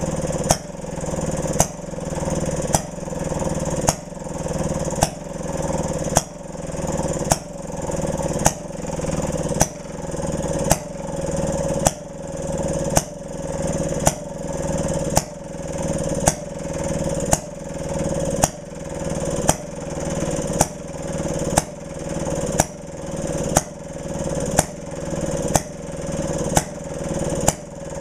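A 1928 Maytag Model 92 single-cylinder two-stroke engine running, with a sharp pop about once a second and the engine's running sound building between pops.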